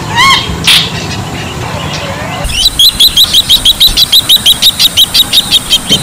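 Bronze-winged jacana calling: a couple of short rising notes at the start, then, from about halfway, a fast run of high piping notes, about five a second, lasting about three seconds.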